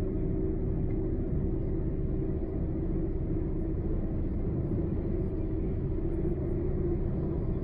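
Car driving at road speed: a steady low rumble of tyres and engine with a constant hum.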